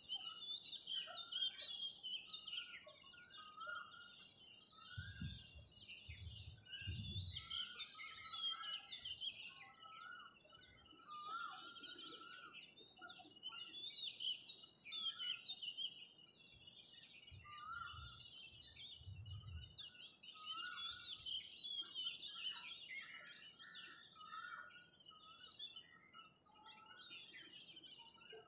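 Dawn chorus of many small birds chirping and trilling over one another without a break. Two short spells of low rumble come a few seconds in and again past the middle.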